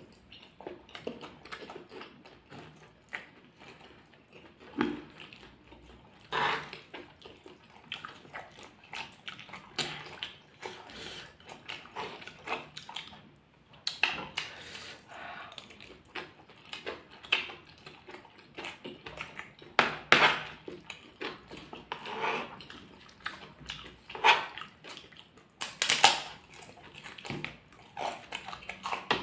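Close-up eating sounds of gado-gado with crisp krupuk crackers: irregular crunching, chewing and wet mouth sounds, in scattered sharp bursts.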